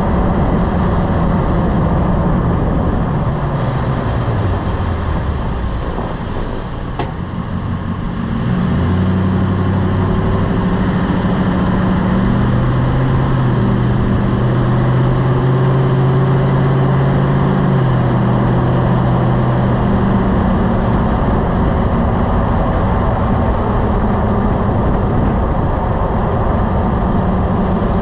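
Lifted pickup truck driving, with engine and road noise. The engine note falls as it slows, and one short knock comes about seven seconds in, near the end of the slowdown: typical of the clunk under braking that the owner is trying to trace. The engine note then rises again as it pulls away and holds steady.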